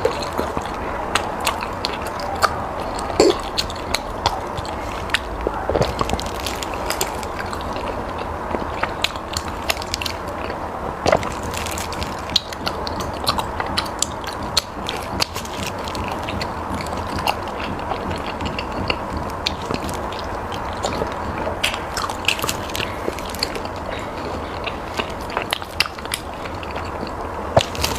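A person chewing and eating close to the microphone: many irregular wet mouth clicks over a steady background hiss.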